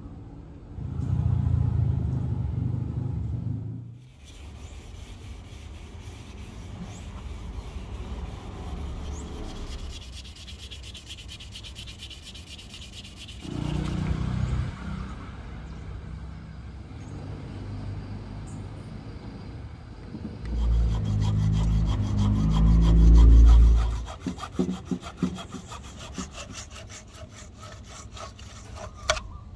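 A hand tool working a rosewood axe handle: fast, repeated strokes scraping across the wood. Louder low rumbles break in about a second in, midway, and most strongly a few seconds after that.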